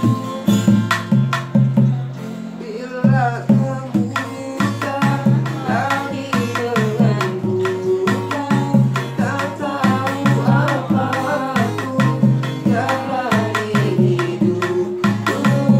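Acoustic guitar strummed in a quick, steady rhythm, with male voices singing along. The strumming eases briefly about two seconds in, and the singing comes in about a second later.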